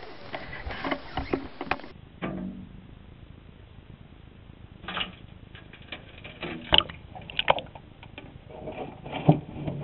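Wire-mesh minnow trap knocking and rattling as it is handled and set down into creek water, heard muffled from a GoPro inside the trap: a run of scattered knocks and clatters.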